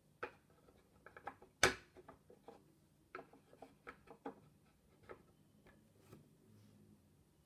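Light wooden clicks and taps as a thin wooden top piece is set onto a kumiko shoji lamp frame and pressed into place, the loudest knock about a second and a half in.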